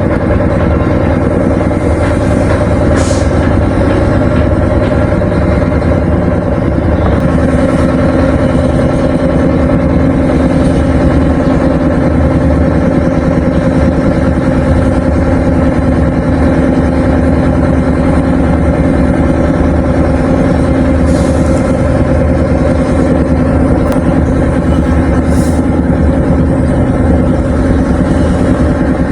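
A large engine running steadily and close by, its pitch shifting slightly about seven seconds in.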